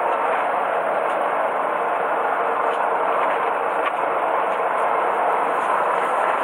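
Steady noise of a fishing boat at sea: the engine's drone mixed with the rush of water along the hull, even throughout with no distinct events.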